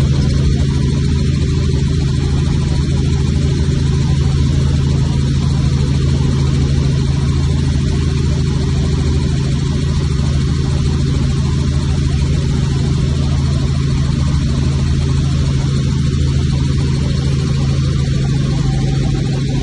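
Helicopter in flight: engine and rotor running in a loud, steady drone with a low, even hum.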